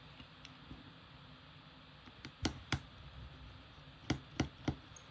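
Small hand tools and screws clicking and tapping against an iPhone XR during disassembly: two sharp clicks about two and a half seconds in, then three more about a second later.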